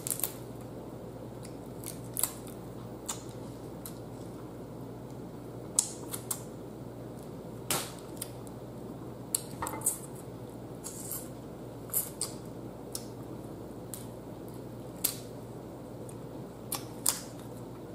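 Boiled blue crab and shrimp shells being cracked and picked apart by hand: a dozen or so sharp clicks and snaps at irregular intervals, over a steady low hum.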